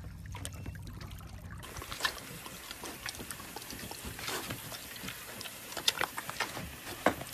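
A pig licking and chomping at an ice lolly: scattered wet smacking clicks, with a little water sloshing in a paddling pool. A low steady hum stops about a second and a half in.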